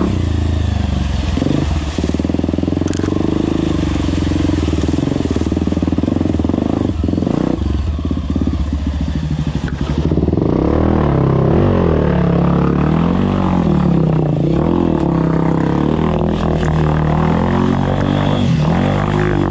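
Honda CRF 250F dirt bike's single-cylinder four-stroke engine running under load through shallow creek water, with the wheels splashing. From about halfway through, the revs rise and fall again and again.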